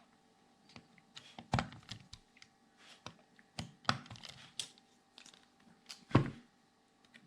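Scattered small clicks and knocks of a hex driver and small screws being worked loose from a 1:8 RC car's chassis, with the loudest knock about six seconds in.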